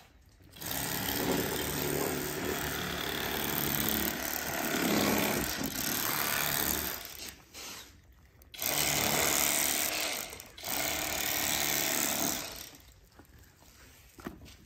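Bubba Blade electric fillet knife running as it cuts into a perch, its reciprocating blades buzzing. It runs in three stretches with two short pauses and stops a couple of seconds before the end.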